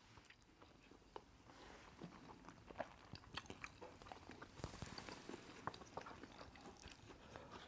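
Faint chewing of rice with small scattered clicks of wooden spoons scooping against plates.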